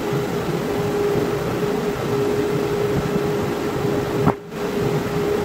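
Grizzly G0513X2BF 17-inch bandsaw running without a cut, a steady hum with one constant tone over the whir of the blade and motor. A short click and a brief dropout come about four seconds in.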